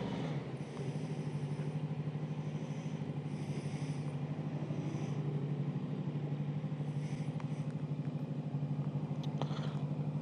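Motorcycle engine running steadily at low revs with an even, regular pulse, with a few faint clicks near the end.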